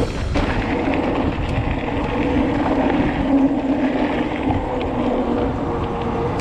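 Bicycle descending at speed: wind rushing over the microphone and tyres rolling on a rough track, with a steady hum underneath.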